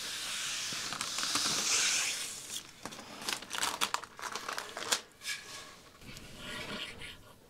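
Rustling, scraping handling noise, steady for about the first two and a half seconds, then a string of light clicks and knocks.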